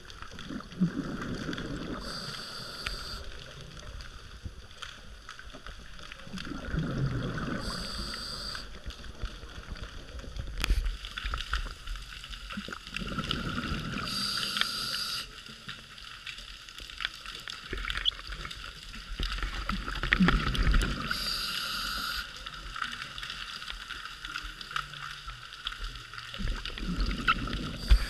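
Scuba diver breathing through a regulator underwater, about every six seconds: a low rumble of exhaled bubbles, then a short hissing inhale through the demand valve. Faint crackling clicks run underneath.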